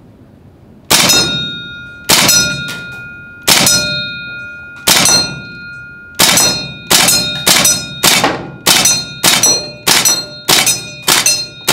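Tokyo Marui Saiga 12K gas blowback airsoft shotgun firing about fourteen times, each shot sending three BBs clanging off a steel target plate that rings on between shots. The first shots come more than a second apart, then the pace quickens to about two shots a second from about halfway in.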